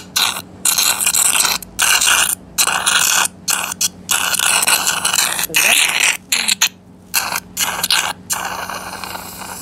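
Surgical suction running, a loud rough hiss that cuts out abruptly again and again as the tip draws blood and fluid from a molar extraction socket opening into the maxillary sinus (an oro-antral fistula).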